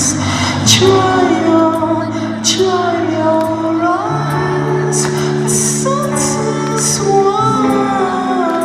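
Live rock band playing, with held bass and chord notes, cymbal hits and a sung melody line that glides between notes.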